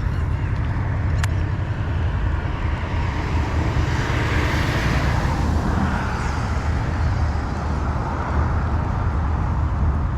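Steady low outdoor rumble, with a hissing swell that rises and fades about four to five seconds in.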